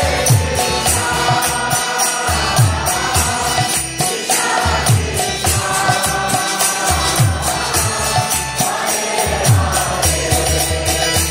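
Kirtan: a group of voices chanting a mantra over mridanga drums, whose deep strokes slide down in pitch, and karatala hand cymbals clashing in a steady rhythm.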